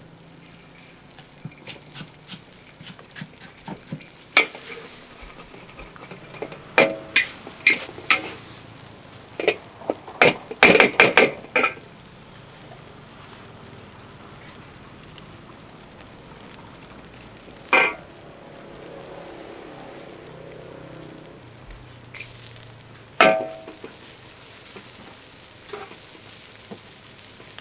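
Noodles stir-frying in a wok: a steady sizzle under a metal spatula striking and scraping the wok, with quick runs of ringing clangs, busiest about a third of the way in, and single clangs later.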